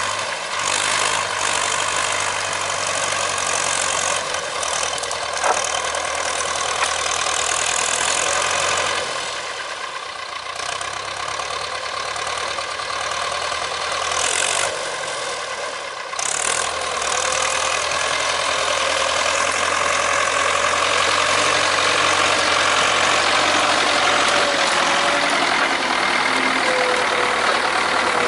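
Ursus C-360's four-cylinder diesel engine running under load as the tractor pulls a trailer heaped with wood, dipping in level about ten seconds in. A thin whine joins the engine in the second half.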